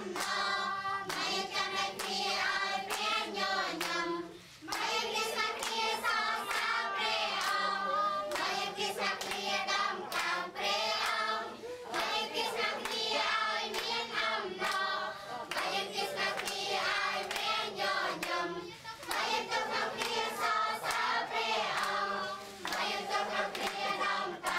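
A group of children singing a worship song together, with hands clapping along.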